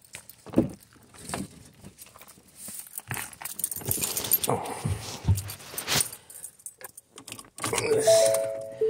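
Keys jangling in hand while a car door is unlatched and opened, with clicks and knocks from the handle and door. From about eight seconds in, the Ford SUV's electronic warning chime sounds in short repeated beeps.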